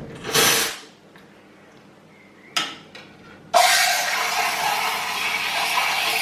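Iberital IB7 espresso machine's steam wand: two short bursts of steam hiss, then about three and a half seconds in a steady, loud steam hiss begins as it starts heating milk.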